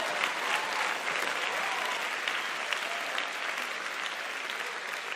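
Church congregation applauding, slowly dying down.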